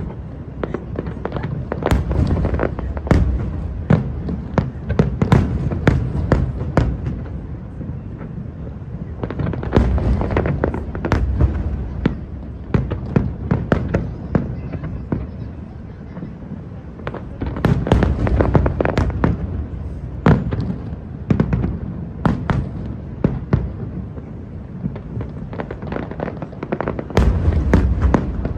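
Aerial fireworks display: a dense run of sharp bangs and crackles over deep booms, coming in several heavier flurries.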